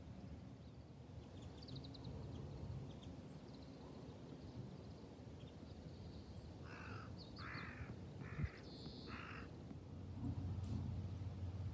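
A crow cawing four times in a row, the caws a little under a second apart, in the second half, over a low steady background rumble.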